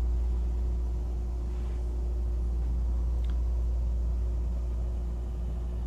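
Steady low mechanical hum: a deep, even rumble with a faint constant tone above it.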